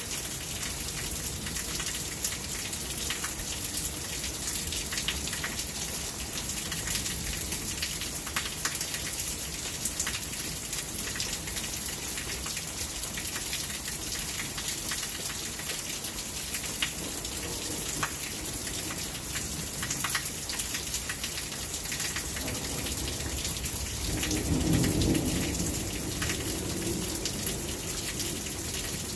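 Steady rain falling, with sharp ticks of drops hitting close by. A low roll of thunder builds about two-thirds of the way through, is loudest a few seconds later, then dies away.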